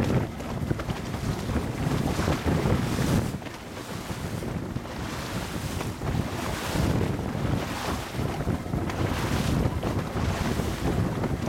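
Wind buffeting the microphone in gusts over water rushing and splashing against the hull of a moving boat.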